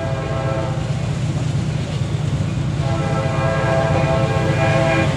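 Nathan K5LA five-chime horn on a CSX SD50 diesel locomotive, sounded in two blasts: a short one at the start and a longer one about three seconds in. Both ride over the steady low rumble of the passing train.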